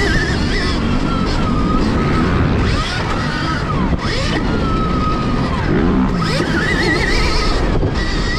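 Stark Varg electric motocross bike's motor whining, its pitch rising and falling over and over as the throttle is opened and closed, over a steady rushing noise from riding.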